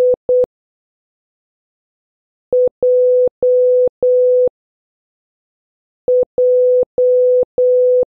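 Morse code practice tone, a steady beep near 500 Hz keyed on and off. It sends the letter I (two short dits) at the start, then J (one dit and three dahs) twice.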